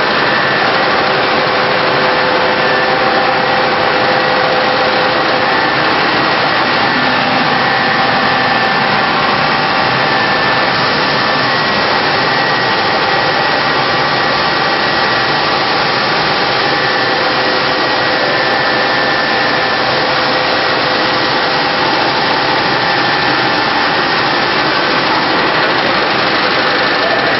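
Steady running of a grain gravity separator on a millet-cleaning line: the machine shaking millet across its deck, a dense, even mechanical noise with a few steady humming tones.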